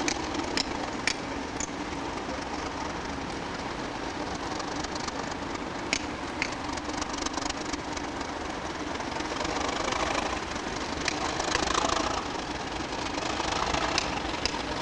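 Class 37 diesel locomotives with English Electric engines running at a stabling point. The engine sound grows louder past the middle as a locomotive works up, with a few sharp clicks.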